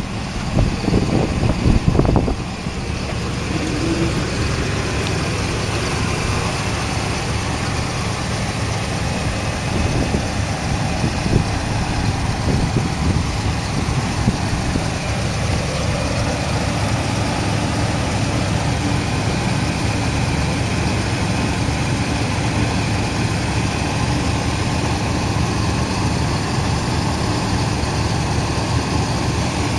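Mid-1970s Cadillac Coupe de Ville's V8 engine idling steadily with a low, even rumble. Rough low gusts, likely wind on the microphone, come through in the first two seconds.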